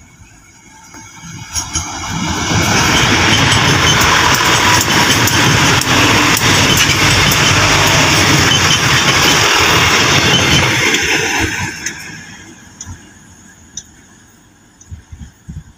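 Diesel multiple-unit commuter train passing: engine and wheel-on-rail noise builds over about two seconds, stays loud for about nine seconds as the cars go by, then fades as the train pulls away.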